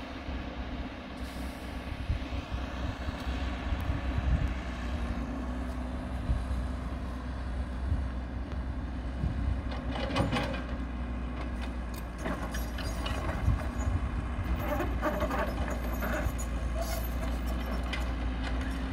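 Caterpillar 312 hydraulic excavator's diesel engine running steadily while it loads earth into a dump truck. Bursts of clattering come about ten seconds in and again from about fourteen to seventeen seconds.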